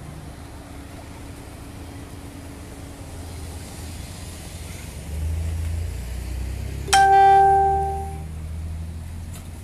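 Street traffic with a car passing, its low rumble swelling halfway through. About seven seconds in comes one sudden, loud, bell-like ring that fades away over about a second.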